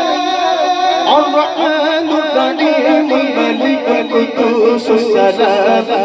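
Devotional naat singing. A voice holds a long, quavering note, then about a second in moves into quicker, rhythmic melodic phrases.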